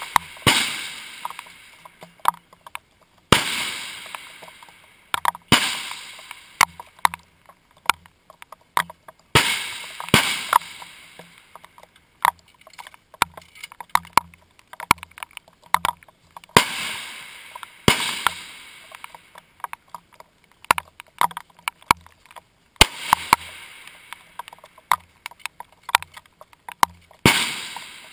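Rifle shots on a shooting range: about ten loud cracks at uneven intervals, each trailing off in an echo over a second or two, with softer clicks and knocks in between.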